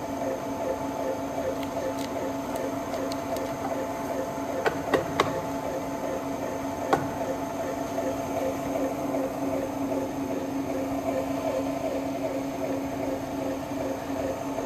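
Challenge MS-5 four-head paper drill's motors running with a steady hum. A few sharp clicks come about five seconds in, and one more about seven seconds in.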